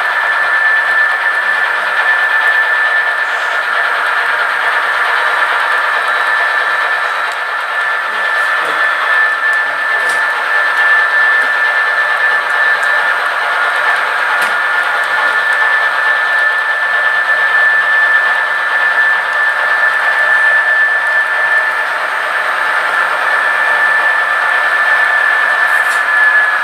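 Model train running on the layout: a steady whirring hiss with a constant high-pitched whine, and a few faint clicks.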